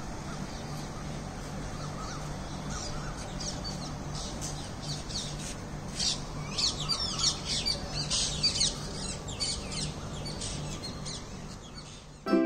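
Birds chirping, many short high calls in quick runs, busiest in the middle, over a steady low hum.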